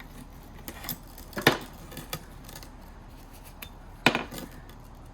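Hard plastic clicks and taps from handling the high-level brake light unit as its bulb holder is twisted anti-clockwise out. There are a few clicks, with sharp ones about a second and a half in and about four seconds in.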